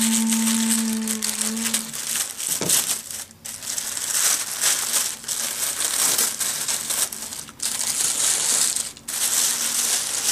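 Tissue paper crinkling and rustling in irregular bursts as it is handled and pulled aside. A steady hum fades out about two seconds in.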